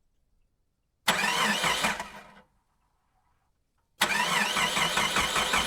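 Sound of a car engine being cranked by its starter: a short crank about a second in, then a longer one from about four seconds in, both starting abruptly out of silence.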